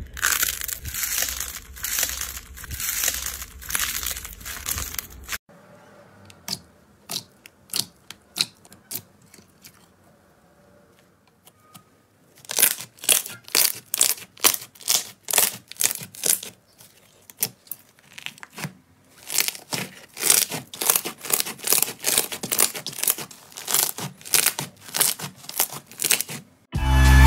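Hands squeezing and pressing slime: a dense run of crackling and popping at first, then after a quieter stretch, repeated squelching pops about two to three a second as a fluffy slime is kneaded and pressed.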